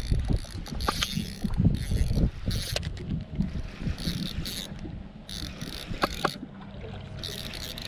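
A fishing reel being cranked, with scattered mechanical clicks, as a fish is brought in. Wind gusts on the microphone for the first few seconds.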